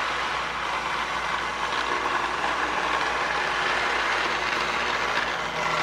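Lionel MPC-era U-boat diesel model train running on the track, its motor and wheels giving a steady whir.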